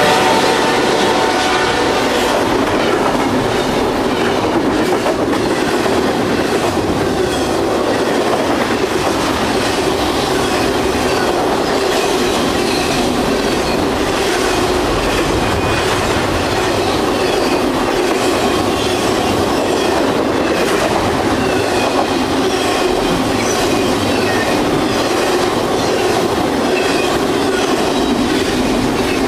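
CSX intermodal freight train passing close by at speed. The locomotive horn trails off in the first second as the diesel locomotives go by. Then come a steady, loud rolling noise of container and trailer cars and repeated wheel clicks on the rails.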